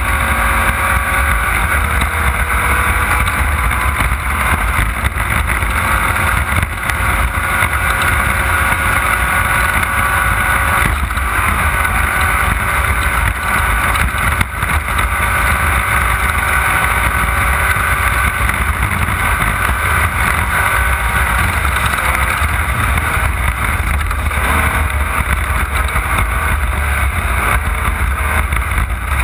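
Off-road race car's engine running hard, heard from on board, a steady drone over a heavy low rumble with no letup.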